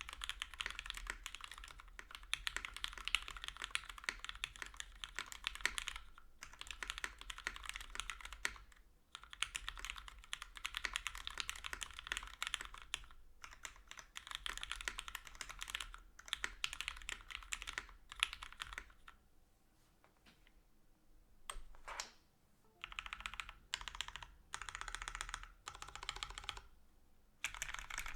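Fast typing on a UTD 356 Mini mechanical keyboard with lubed and filmed Cherry MX Hyperglide Black linear switches in an o-ring-mounted aluminum plate: quick runs of keystrokes broken by short pauses, with a slower stretch of a few single keystrokes about two-thirds of the way through. The bottom-out sounds a little hollow.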